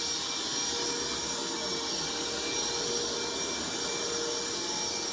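Wet vac running steadily: a constant whine over an even hiss.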